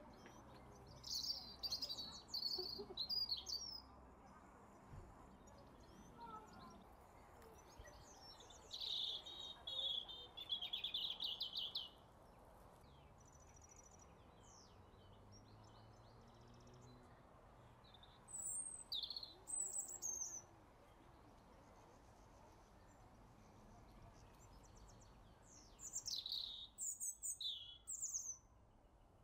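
A songbird singing in four phrases of rapid high notes several seconds apart, over faint steady background noise.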